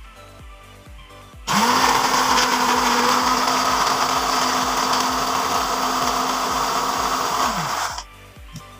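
Cosmos countertop blender switched on about a second and a half in, its motor spinning up to a steady whine as it blends apple pieces with ice cubes and water, then winding down near the end.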